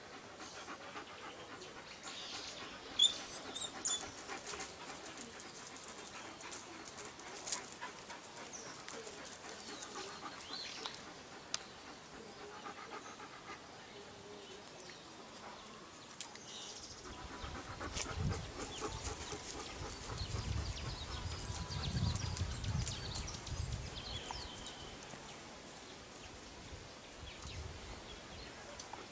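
A dog panting steadily. A few high chirps come about three seconds in, and a low rumble runs through the second half.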